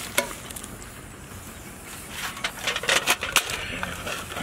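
Metal tongs clicking and scraping on aluminium foil and a foil tray as bread pizzas are lifted off a foil-lined griddle, with foil crinkling. A couple of sharp clicks come near the start, and a dense run of clicks and scrapes comes from about two to three and a half seconds in.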